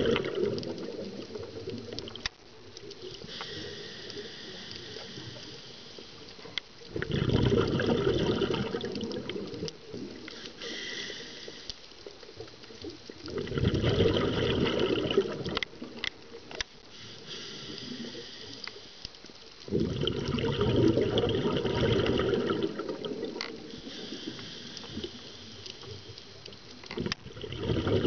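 Scuba diver breathing through a regulator underwater: a quieter hiss of each breath in, then a rush of exhaled bubbles, four times at an even pace of about one breath every six to seven seconds.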